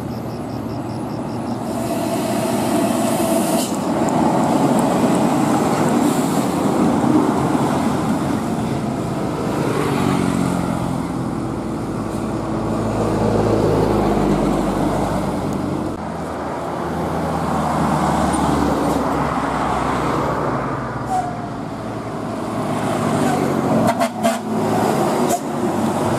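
Road traffic passing: a Hino 500 tanker truck's diesel engine grows louder as it approaches, with its deep rumble strongest and then falling away a little over halfway through. Motorcycles and another truck pass after it.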